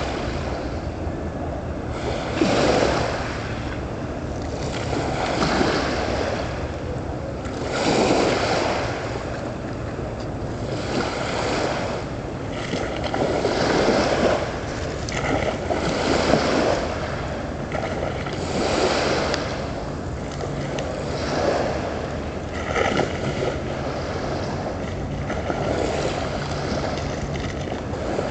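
Small waves washing in about every two and a half to three seconds, over the steady low hum of a passing Orca-class naval patrol vessel's engines.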